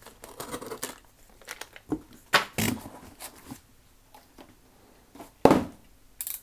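A cardboard shipping box and plastic packing being handled and moved off a desk: crinkling and rustling at first, then several sudden thumps and scrapes, the loudest about five and a half seconds in.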